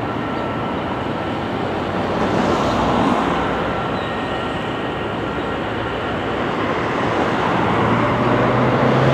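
MÁV M44 diesel-electric shunting locomotive running, a steady dense rumble, with a low engine note coming up and growing louder near the end.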